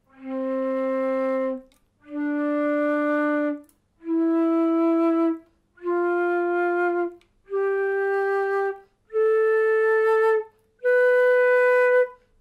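Transverse flute playing an ascending scale in its first octave, seven separate held notes of about a second and a half each, stepping up one at a time from low C. The notes are blown with warm, relaxed breath and a slightly smiling lip position, the technique for the low register.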